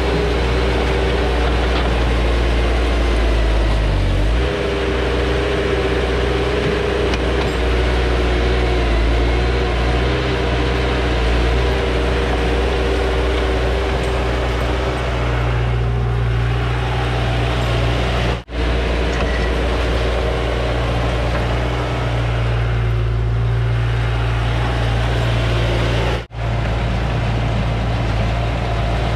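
Bobcat skid-steer loader's engine running steadily while it digs old asphalt millings with a toothed bucket, its pitch shifting a little as the load changes. The sound breaks off very briefly twice.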